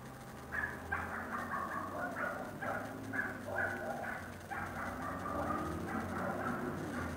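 A rapid string of animal calls, several a second, starting about half a second in and carrying on throughout.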